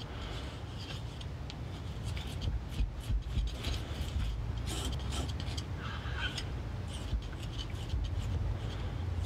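Steel palette knife scraping and smearing Prussian blue pigment paste across a marble slab, working the powder into linseed oil: a run of irregular scratchy scrapes and light clicks over a steady low rumble.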